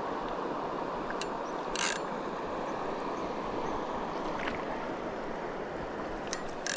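River water rushing steadily, with a few sharp clicks and a brief louder rustle about two seconds in.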